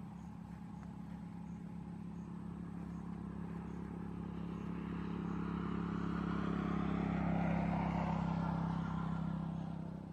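A steady engine drone that grows louder to its peak about seven or eight seconds in, then eases off, like a motor vehicle passing.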